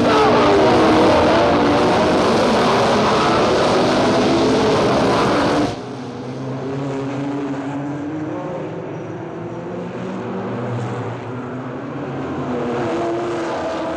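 A field of 1960s Formula One race cars accelerating hard from a standing start, engines revving and rising in pitch together. About six seconds in the sound cuts abruptly to a quieter, lower, more distant engine drone.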